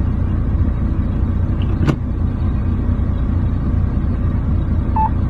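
Loaded dump truck's diesel engine running with a steady low rumble under load as it climbs a steep grade, with one sharp click about two seconds in.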